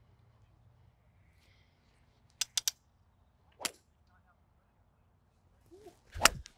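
Golf clubs striking balls on a driving range: a quick cluster of three sharp cracks about two and a half seconds in, another a second later, and the loudest strike, with a deeper thump, near the end.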